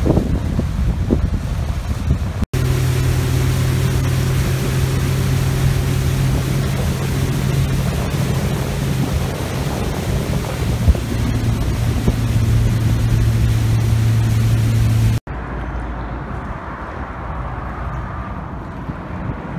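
A boat's motor running at a steady speed under wind buffeting the microphone, as the boat cruises along the canal. Near the end it cuts to quieter outdoor background.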